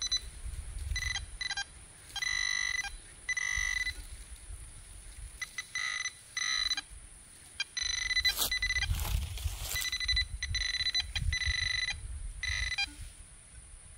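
Handheld metal-detecting pinpointer giving repeated high electronic beeps of uneven length, from short chirps to tones of about a second, as it signals metal in the soil of a dug target. Soft scraping and rustling of soil under the beeps.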